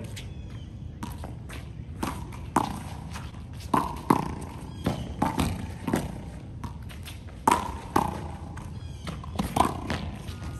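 A handball rally: a small rubber ball slapped by hand, smacking against a concrete wall and bouncing on the court, with about a dozen sharp, irregularly spaced hits.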